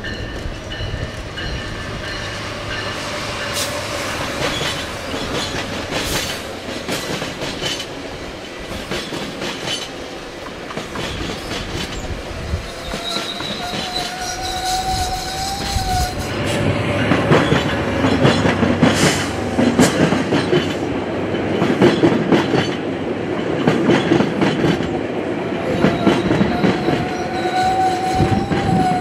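Metrolink commuter train with an EMD F125 locomotive rolling past, wheels clicking over the rail joints with a thin high wheel squeal; it gets louder past the middle.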